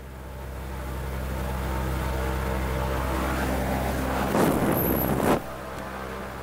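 Engine and propeller of a single-engine light aircraft heard from inside the cabin, a steady low drone growing louder over the first couple of seconds as power comes up. Near the end a loud rushing noise lasts about a second and stops abruptly.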